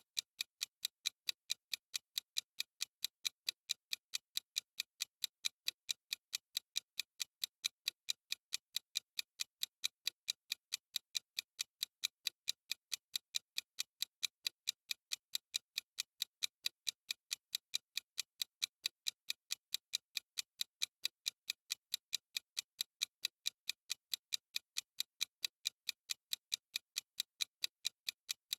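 Ticking of a countdown timer's clock sound effect: short, sharp, evenly spaced ticks, about four a second, held at an unchanging pace.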